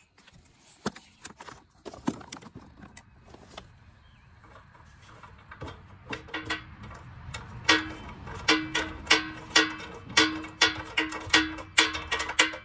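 Small metal clicks and clinks of nuts being threaded by hand onto the bumper reinforcement studs. About halfway through these become a run of sharp regular clicks, about two or three a second, over a steady low hum.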